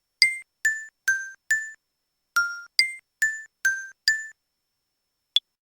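A short, bright, bell-like keyboard melody of nine quickly fading notes, about two a second, in a phrase of four and a phrase of five. A single sharp click follows near the end.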